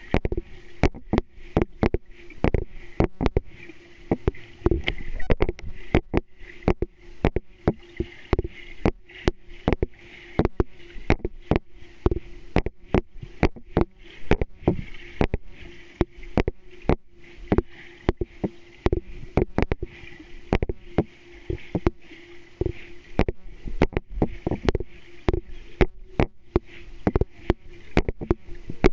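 Underwater sound in a swimming pool: irregular sharp clicks and knocks, several a second, over a steady low hum and a soft hiss.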